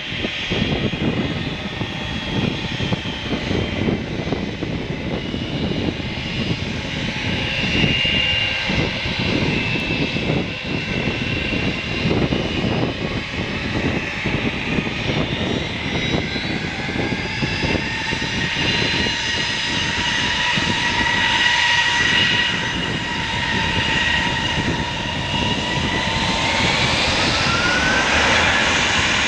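Airbus A320-232 jet engines (IAE V2500 turbofans) running with a dense rumble as the airliner taxis and lines up. From about halfway a whine rises gently in pitch, and it climbs more steeply near the end as thrust comes up for the takeoff roll.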